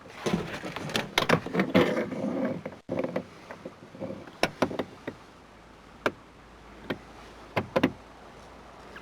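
Plastic clicking and rattling from handling the Suburban's removed plastic door panel and its clips: a busy run of knocks and rattles for about the first three seconds, then a few separate sharp clicks.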